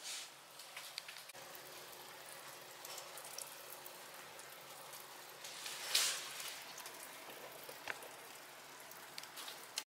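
Heavy rain pouring down in a sudden downpour, a steady hiss with a louder swell about six seconds in. It cuts off suddenly just before the end.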